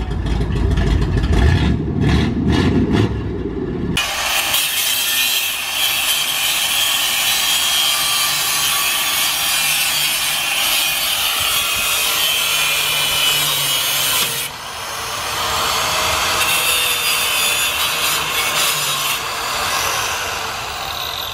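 An old Ford F100 pickup's engine running for the first few seconds, then giving way abruptly to the steady, hissing grind of an angle grinder's wheel cutting metal under the truck.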